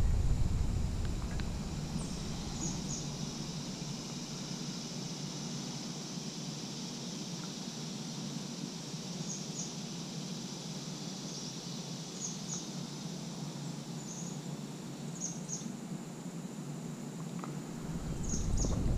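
Riverbank ambience: a steady high insect buzz, with a bird giving short paired chirps every few seconds. A low rumble of wind on the microphone fades out about a second in and returns near the end.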